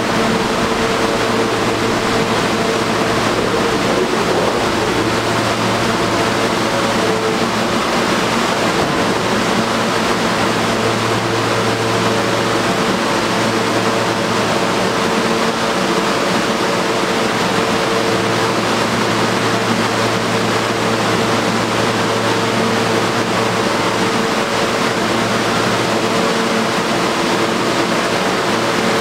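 R160 subway car standing at a platform with its doors open, its air-conditioning and onboard electrical equipment running: a steady hiss with a constant low hum and a higher tone.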